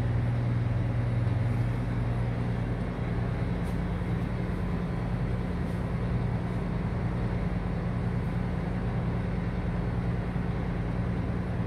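Steady low hum of a cargo ship's engine and machinery, with the ship under way at slow speed on its own engine.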